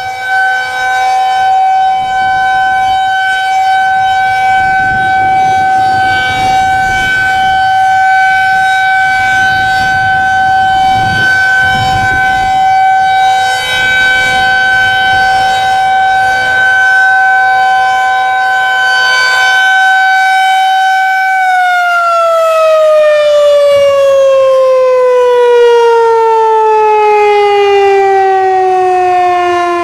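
Federal Signal 2001 electromechanical tornado siren sounding a steady tone, then shutting off about two-thirds of the way through and winding down, its pitch falling smoothly as the rotor slows.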